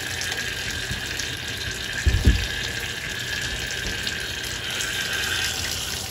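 Water running from a tub spout into a bathtub, a steady splashing stream. A short low thump about two seconds in.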